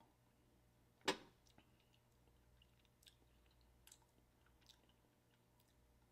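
One loud swallow of a mouthful of drink about a second in, close to the microphone, followed by a few faint mouth clicks and lip smacks while it is tasted.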